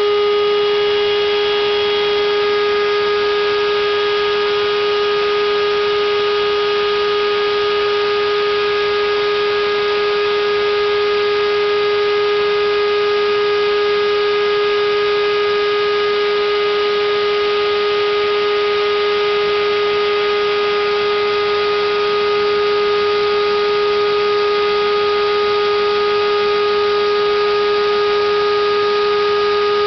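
Homemade CNC router running, a steady whine that holds one pitch, with fainter overtones above it.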